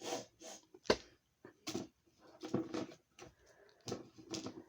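Short bursts of breathy, stifled laughter, with a sharp click about a second in.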